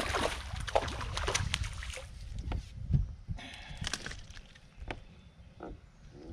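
A hooked fish splashing and thrashing at the water's surface beside a boat as it is reeled in and lifted aboard, with a loud low thump about three seconds in. After that, quieter scattered clicks of handling.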